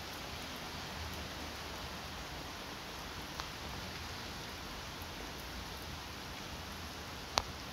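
Steady rain falling, heard as an even hiss. A small sharp tick comes a little before halfway and a louder one near the end.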